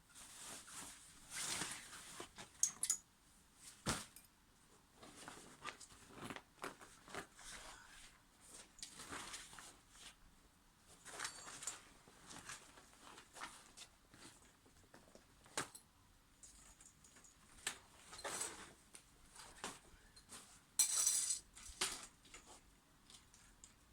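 Scattered handling noises: light knocks, clicks and small metallic clinks with rustling, and a louder scraping rustle about 21 seconds in.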